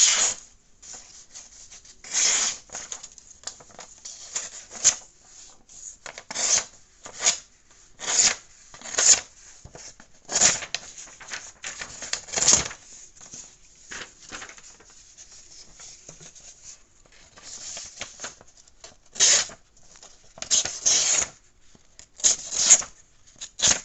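Leatherman Rev's 420HC knife blade slicing paper in a series of about a dozen short cuts, one to two seconds apart, with a lull about two-thirds through.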